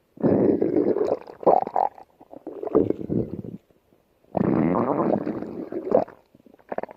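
Stomach growling in irregular rumbles: a long growl of about two seconds at the start, a shorter one a little before the middle, another two-second growl past halfway, and a few brief bursts near the end.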